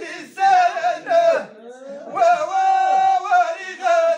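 Two men singing together in long, wavering held notes, with a short break about a second and a half in.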